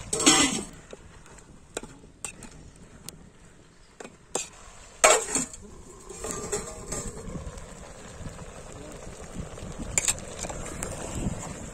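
A steel spatula stirring chunks of pork and potato in a metal cooking pot, with a loud clatter at the start and a few sharp knocks against the pot. About five seconds in comes a loud metal clang with a falling ring, fitting the metal plate lid going onto the pot, followed by quieter scraping and clinking.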